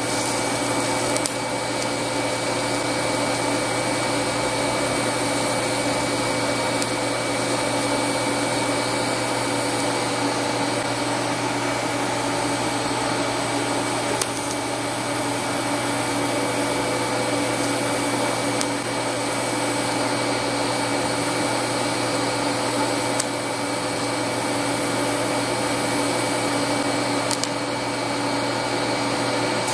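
TIG welder running while cast iron is welded with cast iron filler rod: a steady whirring hum with a hiss, and a few faint brief clicks.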